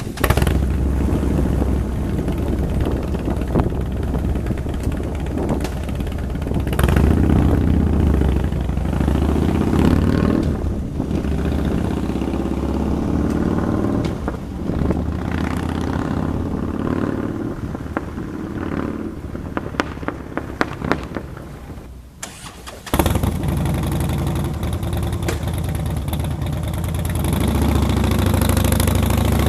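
Harley-Davidson Dyna's 96 cubic inch V-twin running through a 2-into-1 aftermarket exhaust: it starts, idles and is revved several times. Around 22 seconds in the sound drops away, then comes back abruptly a second later.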